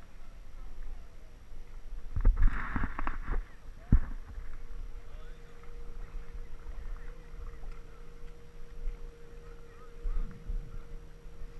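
Water splashing and sloshing in shallow river water as a hooked salmon thrashes close to a wading angler, loudest about two seconds in, with a sharp knock just before four seconds, over low wind rumble on the microphone. A faint steady hum comes in from about five seconds.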